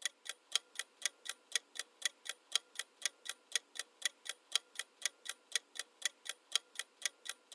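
Ticking clock sound effect counting down the quiz timer: short, even ticks at about four a second.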